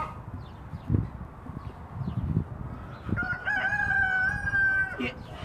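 Rooster crowing once: a single long call of about two seconds, starting about three seconds in. A couple of low thuds come before it.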